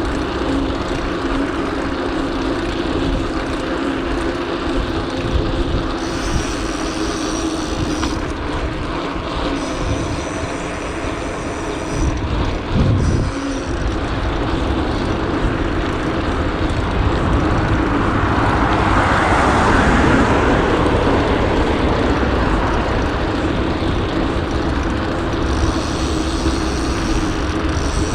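Street traffic and wind noise heard from a moving bicycle in city traffic, a steady rushing din. There is a brief low thud about halfway through, and the noise swells louder for a few seconds past the middle, as from a vehicle passing close.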